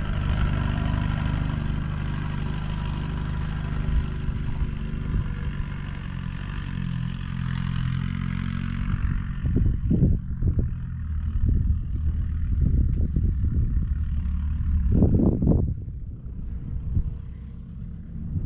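Four-wheel-drive vehicle engine running and pulling through soft beach sand, with a steady low rumble. A hiss of wind and tyres dies away about halfway through, and several heavy thumps come near 10 and 15 seconds.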